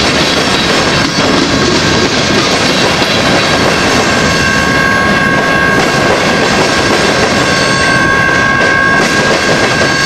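Freight train's open-top rock cars rolling past on the rails, wheels clacking over the joints. A steady high tone comes up about halfway through and holds.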